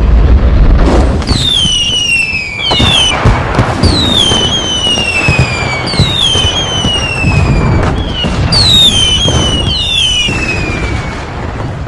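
Fireworks sound effect: a run of whistling fireworks, each a high whistle falling in pitch, over a steady din of bangs and crackling.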